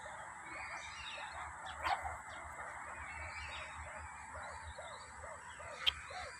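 Meerkats calling: a steady chatter of short chirps and yelps that come thicker toward the end, with a sharp click about two seconds in and a louder one near the end.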